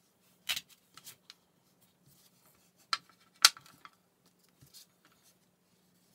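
Plastic cake-decorating tools handled on a work board: a few sharp clicks and knocks, the loudest two about three and three and a half seconds in, as the rolling pin is set down and a ball tool is picked up.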